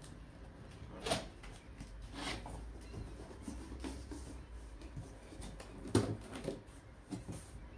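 Handling noises from unpacking: a few scattered light knocks and scrapes, the loudest about a second in and about six seconds in.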